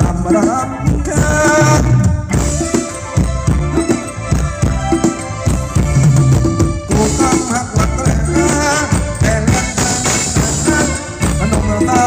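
Live band playing Thai ramwong dance music: a steady beat over a bass line, with a wavering melody on top.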